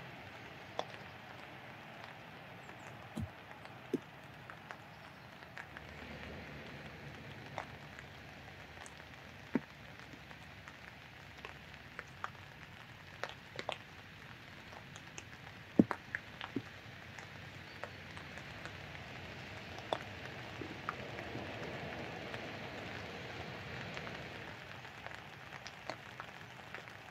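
Faint, steady outdoor background noise with scattered light ticks and taps at uneven intervals, one sharper tap about two-thirds of the way through.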